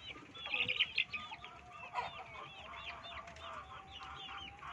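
Backyard chickens calling: many quick, high cheeping calls overlapping one another, with clucking, and a drawn-out lower call through the second half.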